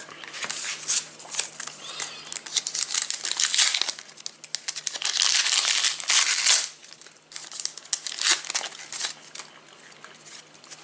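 Foil trading-card pack wrapper crinkling and tearing as it is ripped open and handled, in several bursts of dense crackling that die down near the end.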